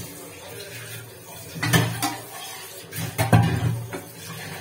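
Steel dishes clattering as they are washed at a kitchen sink: irregular clinks and knocks, with the loudest clash about three seconds in.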